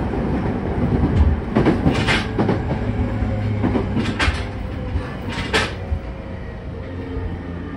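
JR E231-0 series motor car (MoHa E230) running, heard inside the cabin: a steady low rumble of wheels on rail, with sharp clacks in close pairs as the bogies cross rail joints several times. The sound grows quieter near the end.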